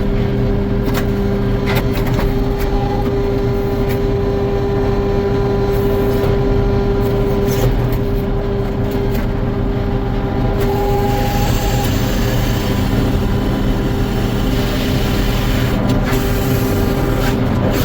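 Sawmill running steadily with a constant hum while sawing white pine logs. About ten seconds in a higher hiss joins it for some six seconds.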